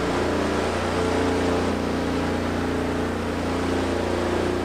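Jeep Wrangler's 3.6-litre V6 with a newly installed turbo kit, running at a steady idle on its first start after the installation.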